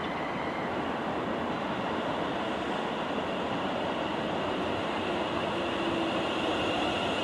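London Northwestern Railway Class 350 Desiro electric multiple unit running into the platform: a steady rumble with a high whine that grows louder near the end.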